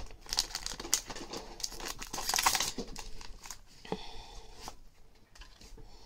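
Foil wrapper of a Pokémon booster pack crinkling and tearing as it is opened and the cards are pulled out, loudest about two seconds in.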